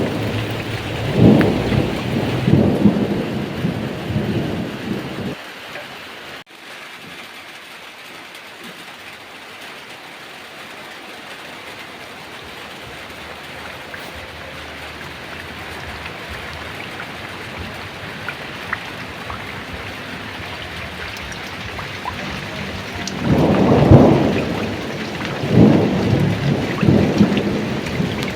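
Heavy rain pouring steadily, with thunder rumbling in rolling swells during the first few seconds and again near the end.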